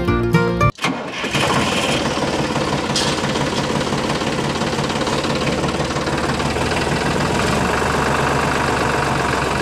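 Small electric toy motor running steadily, spinning a shaft fitted with a blade. It starts about a second in, as the music cuts off.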